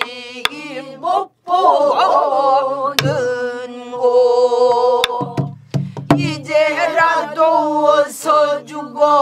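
Korean traditional singing in pansori style: a single voice holding long, heavily wavering notes, punctuated by a few sharp strokes on a buk barrel drum.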